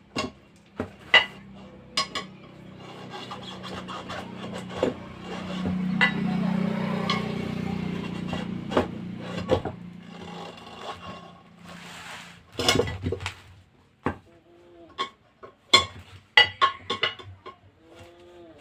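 Metal tyre levers clinking and scraping against a steel motorcycle wheel rim while a tyre is worked onto it by hand, with scattered sharp knocks, rubbing and a few short squeaks of rubber. A low droning hum swells and fades in the middle.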